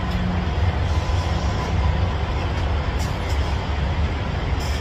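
Semi-truck diesel engine running with a steady low rumble, with a few faint clicks.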